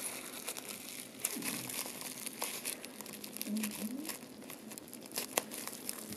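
Plastic bubble wrap rustling and crackling as it is handled and cut open with scissors, a scatter of small clicks and one sharper click near the end.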